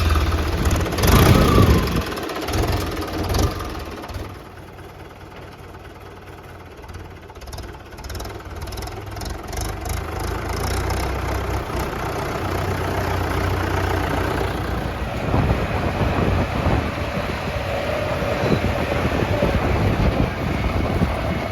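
Diesel engines of earthmoving machinery running. The engine noise surges loudly in the first few seconds, eases off around four seconds in, then builds back to a steady, heavier run.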